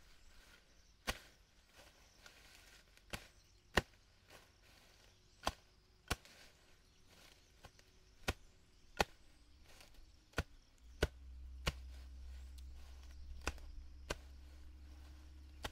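Hand tool chopping while clearing a field: about a dozen sharp strikes at uneven intervals, often two close together. A low rumble comes in about eleven seconds in.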